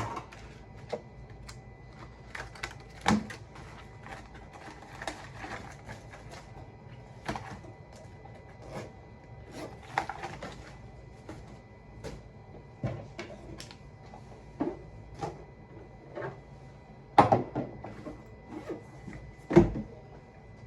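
Scattered clicks and knocks of objects being handled and set down, the loudest about three seconds in and twice near the end, over a faint steady high hum.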